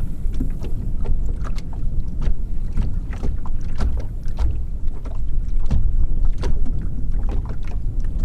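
Small water chop slapping irregularly against the hull of a small skiff, over a steady low wind rumble on the microphone.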